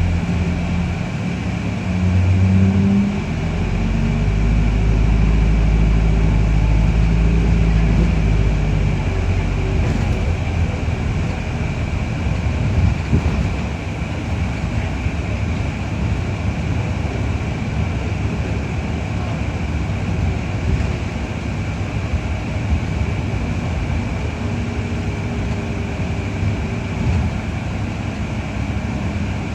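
Cabin of a New Routemaster hybrid double-decker bus on the move, heard from the upper deck rear. A deep engine drone with a brief change in pitch about two seconds in dies away about nine seconds in, leaving steady road and body rumble with scattered knocks. A steady high-pitched whine runs under it all.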